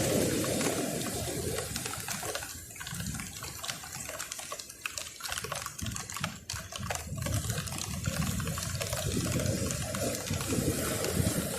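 Sea water surging and washing over shoreline rocks, swelling and ebbing in waves, with a few faint ticks in the middle.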